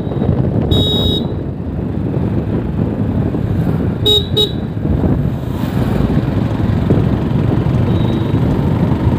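Motorcycle engine and wind rush on the move, with a short horn beep about a second in and two quick horn toots about four seconds in.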